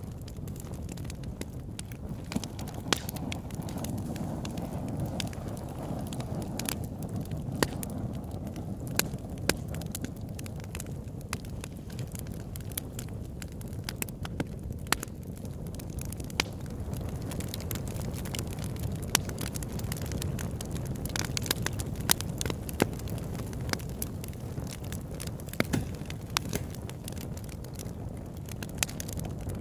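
Campfire burning: a steady low rush of flames with frequent sharp, irregular crackles and pops.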